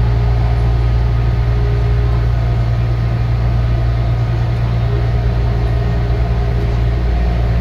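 Taichung Metro Green Line train running along the track, heard from inside the car: a steady low rumble and hum.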